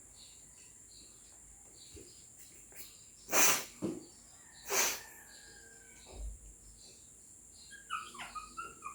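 A dog making two loud, short, noisy sounds about a second and a half apart, with a smaller one just after the first.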